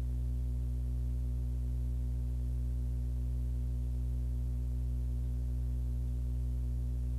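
Steady low electrical hum with a stack of even overtones, unchanging throughout, under silent film.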